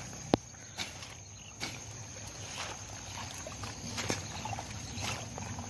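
Footsteps and the rustle and swish of leaves and stems as people push through dense ferns and undergrowth, with irregular knocks and a sharp snap about a third of a second in. A steady high tone runs underneath.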